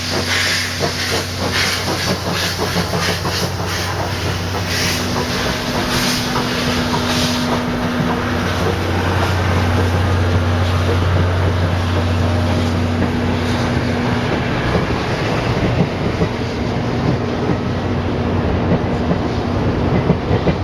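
Steam locomotive C11 171 hauling its train, with exhaust beats through the first several seconds, then a steady rumble of the train rolling on the rails that grows slowly louder.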